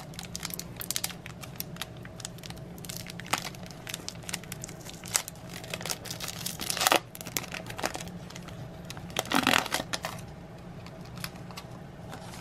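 Foil trading-card pack wrapper being torn open and crinkled by hand, a run of small crackles with louder rips about seven seconds in and again about nine and a half seconds in.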